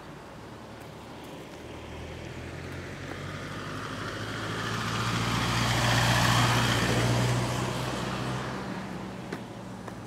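A motor vehicle driving past on the road. Its engine hum and tyre noise swell to a peak about six seconds in, then fade away.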